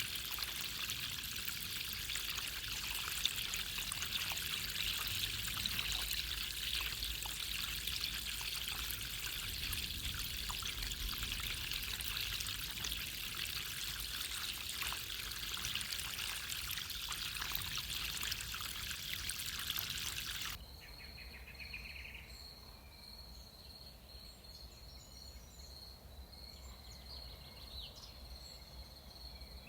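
Steady pouring, splashing running water for most of the stretch, cutting off abruptly about twenty seconds in to a quieter forest ambience: a steady high insect trill with a few short bird chirps.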